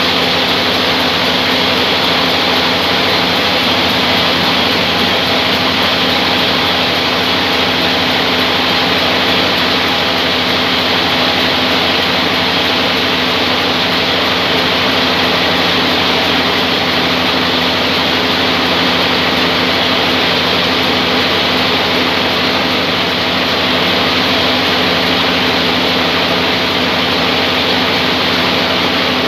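Band sawmill machine running steadily: a loud, even mechanical noise with a steady hum underneath that does not change throughout.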